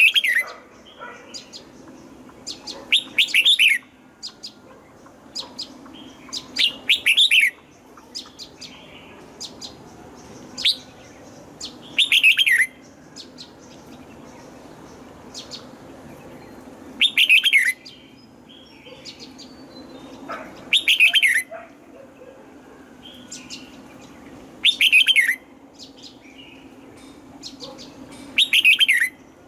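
Red-whiskered bulbul singing: short, loud phrases of quick falling whistled notes, repeated every three to four seconds, with softer chirps between them.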